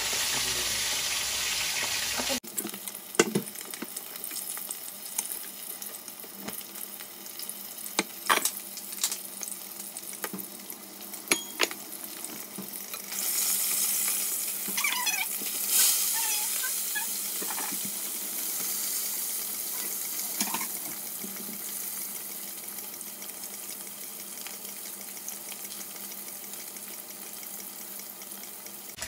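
Chicken broth boiling in a stainless steel pot: a steady bubbling hiss with scattered pops and clicks. It drops in level about two seconds in, and swells again for a few seconds in the middle.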